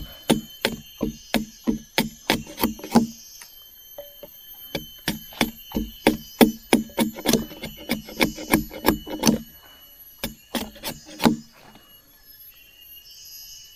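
Machete chopping and shaving a stick of wood braced against a log: quick sharp chops at about three a second, in three runs with short pauses, stopping a couple of seconds before the end.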